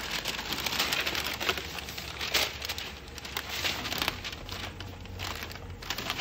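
Masking paper crinkling and rustling in irregular crackles as it is handled and pulled back, with masking tape being peeled away.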